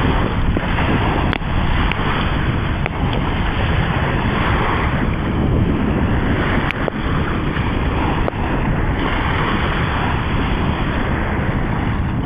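Wind buffeting the microphone over the steady wash of surf on the beach, with a few faint clicks.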